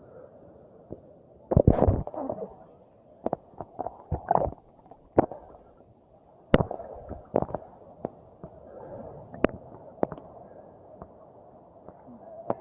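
Seawater sloshing and slapping against a phone held at the surface by a swimmer, sounding muffled. It is broken by a string of sharp splashes and knocks, the loudest cluster about one and a half seconds in and single ones every second or so after.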